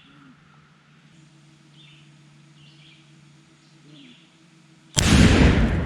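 Faint bird chirps over a steady low hum, then about five seconds in a sudden, very loud blast as a 2.5-pound charge of Tannerite detonates inside a wooden outhouse, the blast rumbling on afterwards.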